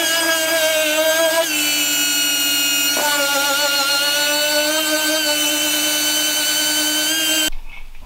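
Air-powered dual-action sander running on a plastic headlight lens with 1000-grit paper: a steady whine that shifts pitch twice, then cuts off suddenly near the end.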